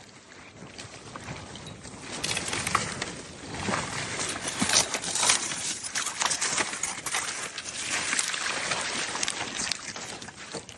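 Water splashing and sloshing irregularly, getting louder about two seconds in.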